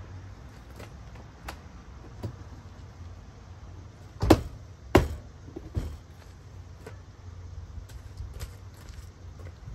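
Plastic door trim panel of a Chevy Avalanche being pressed onto the door, its push-in clips knocking and snapping into place: a scatter of light clicks, with two loud knocks about four and five seconds in and a smaller one soon after.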